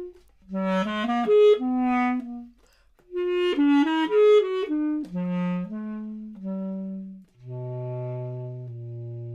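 Solo basset horn playing two phrases of quick notes, then descending through slower notes to long, low held notes at the close.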